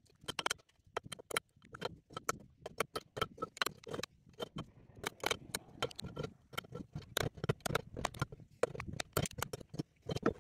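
Irregular sharp metallic ticks and taps, several a second, as a thin scraper blade is worked into the seam of a hub motor's steel casing and knocks against the metal. The end cover is stuck fast with sticky gasket paste.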